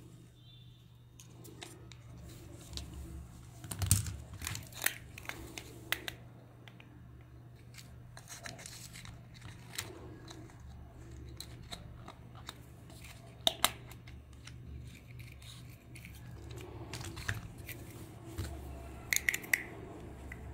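Light clicks, taps and rattles of small plastic toy parts and wires being handled and fitted together, with sharper clicks about 4 s in, around 13 s in, and a quick cluster near the end. A faint low hum runs underneath.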